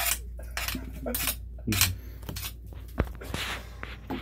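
A run of short clinks, scrapes and rubs of hard objects on the floor and drain flange, with one sharp click about three seconds in.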